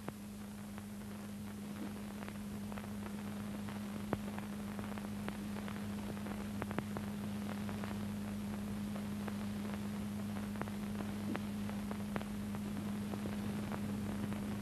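Steady low electrical hum with hiss and many scattered clicks and crackles, growing slightly louder across the stretch: the background noise of an old film soundtrack transfer with nothing else on it.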